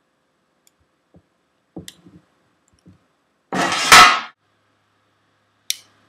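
Handling of a Leatherman Super Tool 300 multi-tool: a few small clicks and knocks, then a loud scraping rush lasting under a second about three and a half seconds in, and a sharp click near the end.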